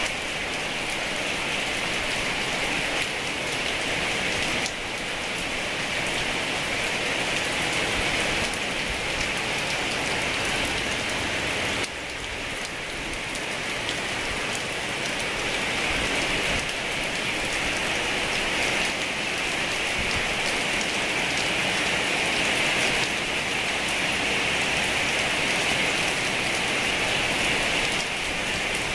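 Heavy rain falling steadily, a dense even hiss of countless drops.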